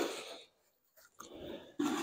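Bursts of rushing, hissing air noise: one fades out early, there is a silent gap, then a weaker burst and a stronger one build up near the end.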